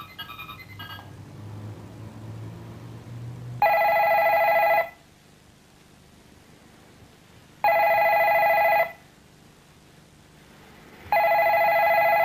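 A few short electronic beeps, then a telephone ringing three times. Each ring lasts about a second and is followed by a pause of about two and a half seconds.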